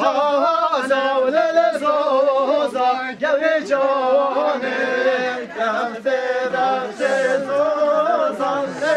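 Voices singing a halay dance song together, with no instruments or drumbeat heard.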